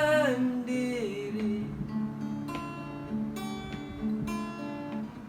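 A man singing the end of a Malay song line, holding the last word as his voice slides down, then an acoustic guitar strummed in chords struck about once a second and left to ring.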